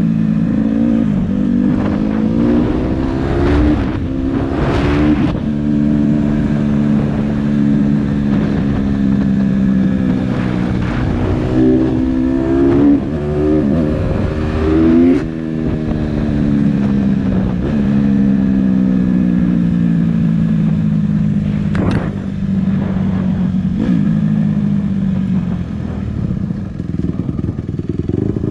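Honda CRF150R dirt bike's single-cylinder four-stroke engine running at road speed. Its revs climb in short rises, around the start and again midway, and settle into a steady cruise in between.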